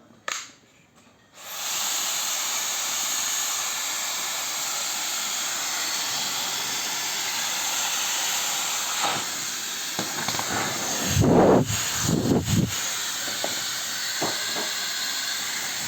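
Dyson Supersonic hair dryer switched on about a second and a half in, then blowing with a steady, high, airy hiss. A few louder, deeper rumbling gusts come near the end.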